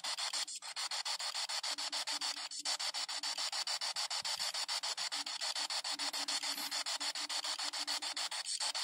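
P-SB7 spirit box, a mini AM/FM frequency-sweep radio, sweeping the band. It makes harsh radio static that is chopped into rapid, even stutters many times a second as it steps from station to station.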